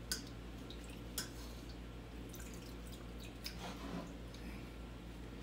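Soft drips and small splashes of water as cooked chiles are lifted out of their cooking liquid in a pot, with a few short, sharp ticks of dripping over a low, steady hum.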